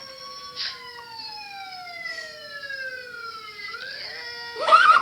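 Siren-like gliding tones that fall slowly over about three seconds and then rise again, with a steady lower tone beneath. A loud, short pitched sound comes near the end.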